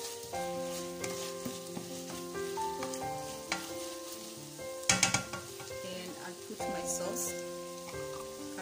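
Diced chicken sizzling and frying in a stainless steel pan while a plastic spatula stirs and scrapes it, with a sharp clatter of the spatula against the pan about halfway through. Background music plays underneath.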